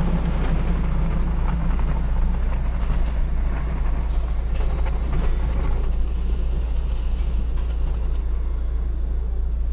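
Automatic car-wash machine running: a steady low rumble with hissing spray and scattered brush or water clicks that die down about six seconds in.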